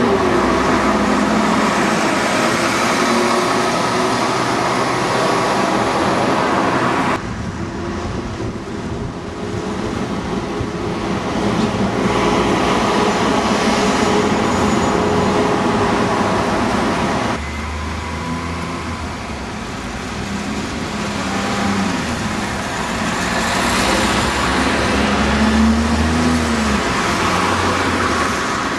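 Street traffic with vehicle engines running and passing. The sound changes abruptly twice, as one recording gives way to another. Near the end an engine note rises and then falls.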